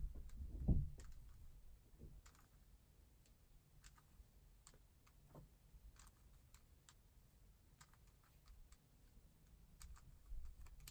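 Faint, irregular plastic clicks of a 3x3 Rubik's cube's layers being turned by hand through a move sequence, with one low thump under a second in.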